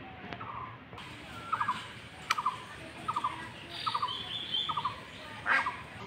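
A bird calling over and over: six short rattling calls, about one every three-quarters of a second, with two sharp clicks, the second louder, near the middle and near the end.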